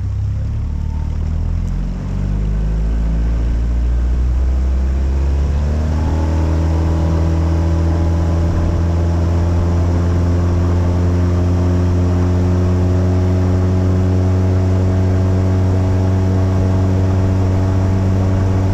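Outboard motor on a small aluminium jon boat throttling up. Its pitch rises from about two seconds in to about six seconds in, then holds steady at cruising speed, with water rushing along the hull.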